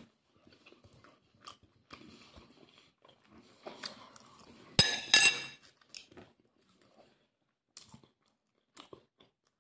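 Close mouth sounds of a man chewing and biting a pincho moruno (spiced meat skewer): soft, intermittent crunching and chewing, with a louder pair of sharp smacks about five seconds in.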